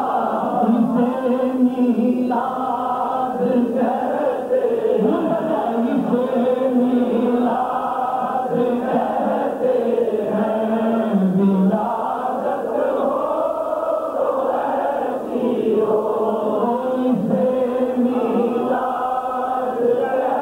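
Male voice singing a naat, devotional Islamic poetry, in long held notes that slide up and down, without a break.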